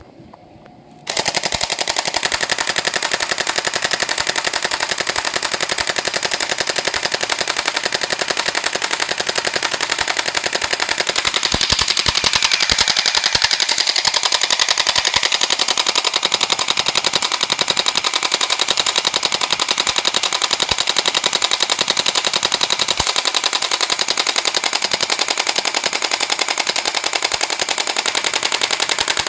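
Electric airsoft Uzi SMG firing on full auto in one long unbroken burst: a fast, steady rattle that starts about a second in and cuts off suddenly just before the end, the gun shooting out the last of its BBs.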